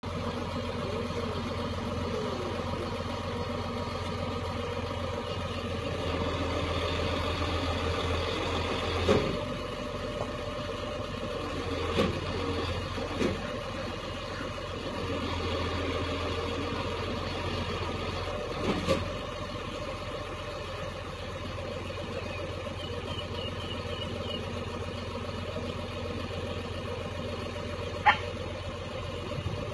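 Truck engine idling steadily, with a few sharp knocks and clanks over it.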